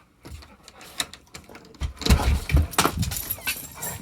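Jingling of a dog's collar tags and clatter of a door being opened, with sharp clicks throughout and heavy low bumps about two seconds in.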